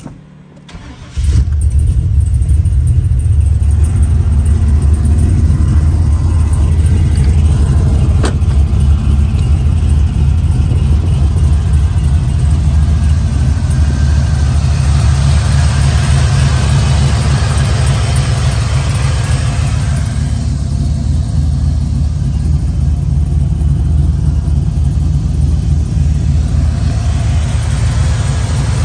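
LS-swapped 5.3-litre V8 with an aftermarket cam and heads in a 1991 GMT400 truck starts about a second in and runs loud and steady. It eases slightly after about twenty seconds.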